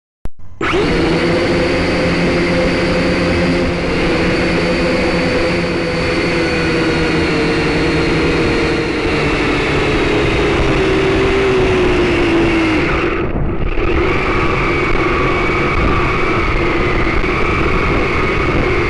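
Quadcopter drone's motors and propellers running with a steady whine whose pitch sinks slowly. About thirteen seconds in the sound briefly thins, then carries on at a steadier pitch.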